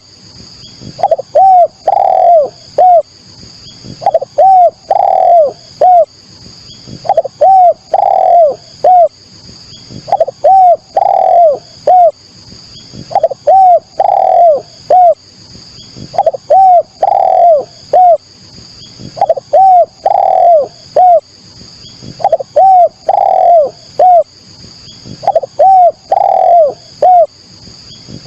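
Spotted dove (derkuku, tekukur) cooing: a phrase of four or five hoarse coos about every three seconds, repeated evenly. Faint high chirping runs behind it.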